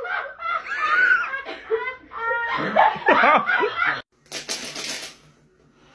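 A person laughing in repeated bursts, cut off abruptly about four seconds in and followed by faint hiss.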